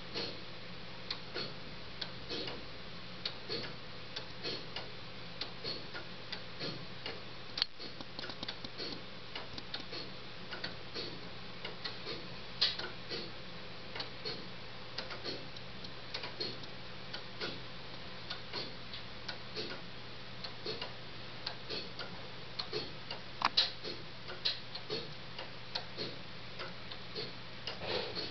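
3D-printed plastic weight-driven pendulum clock ticking steadily: the escapement gives an even tick-tock of short, dry clicks, with a few louder clicks along the way.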